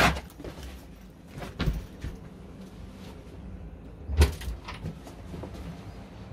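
Seat cushions being moved and a bench-seat lid lifted open: a sharp knock at the start, a softer one near two seconds, and a sharp knock with a thump about four seconds in, with soft handling noise between.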